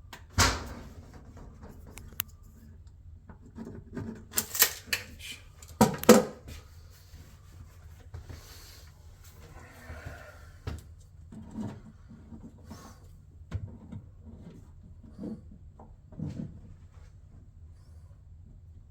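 Scattered light knocks, clicks and rubbing from hands and tools working on a wooden cabinet door. The loudest is a sharp knock about six seconds in.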